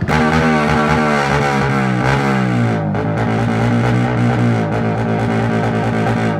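Motorcycle with a loud aftermarket exhaust pipe being revved hard while standing still. Its pitch slides down over the first couple of seconds, then holds at high revs.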